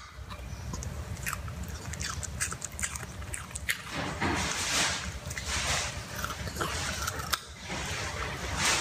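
Puppy chewing and gnawing on a whole raw carrot, with repeated crisp crunches.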